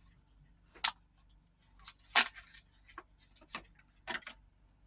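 Scattered sharp clicks and taps of hands handling small objects, about six in all, the loudest about two seconds in.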